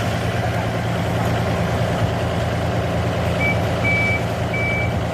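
Excavator's diesel engine running steadily, and a little over three seconds in its travel alarm starts beeping: three short, high, evenly spaced beeps.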